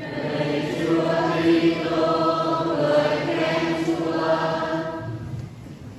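Congregation singing together the sung response to the Gospel reading, which fades out about five seconds in.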